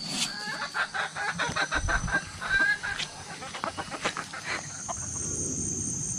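Chickens and roosters clucking and calling in a quick run of short calls. About five seconds in these give way to the low rush of a creek and a steady high insect drone.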